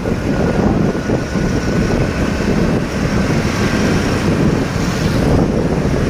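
Wind buffeting the phone's microphone on a moving motorbike: a loud, steady rush and rumble of riding air, with road and traffic noise under it.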